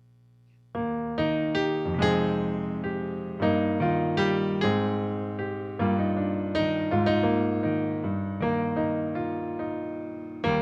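Slow piano music: chords struck one after another, each left to ring and fade, beginning about a second in after a faint low hum.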